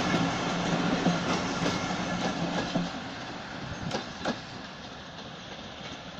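Bangladesh Railway intercity passenger coaches rolling past on steel rails, with a few sharp wheel clacks over the rail joints. The rumble fades as the tail of the train moves away.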